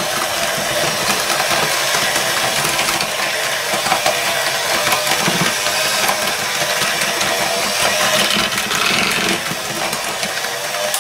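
Electric hand mixer running steadily, its twin beaters churning cake batter as eggs are beaten into the creamed butter and sugar.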